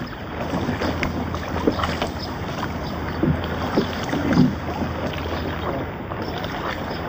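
Wooden rowboat at a stone quay: scattered knocks and a few short low creaks of its timbers and oars, over a steady wash of wind and water.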